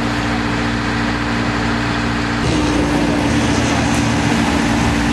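Engines running with a steady droning hum over a broad rushing noise, shifting slightly in pitch about two and a half seconds in.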